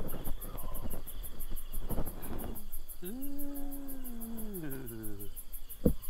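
Night insects chirping in a fast, steady, high-pitched pulse throughout. About three seconds in, a drawn-out call of about two seconds rises, holds, then falls in pitch.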